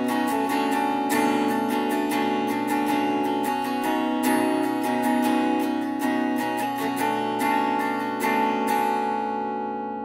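Red solid-body electric guitar, capo at the second fret, strummed through a chord progression in A minor-based voicings up around the seventh and ninth frets. The chords change every second or two, and the last chord, near the end, is left to ring and fade.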